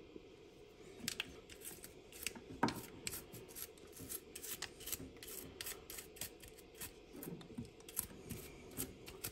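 Toothbrush bristles scrubbing the plastic mesh basket of a front-load washer's drain pump filter, which is clogged with lint and hair. The scrubbing starts about a second in as quick, irregular scratchy strokes.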